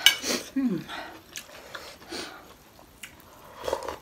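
Close-up eating sounds: a series of short slurps and sips of soup from a bowl, with a brief falling voice sound, like an 'mm', about half a second in.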